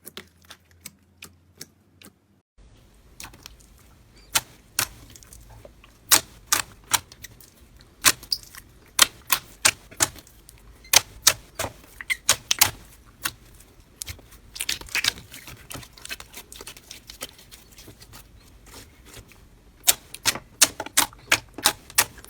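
Slime being pressed and poked by hand, giving many sharp, irregular clicks and pops as air pockets burst, with a short break about two and a half seconds in.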